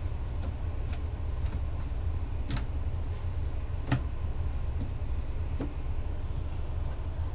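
Scattered light clicks and taps from a plastic container and hands as fish pieces are tossed in cornmeal, over a steady low hum.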